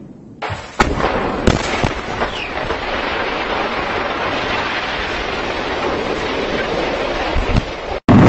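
Explosive demolition charges firing at the base of a tall chimney: a few sharp cracks about a second in, then a steady noise of the collapse and falling debris. This cuts off abruptly just before the end, where a louder blast begins.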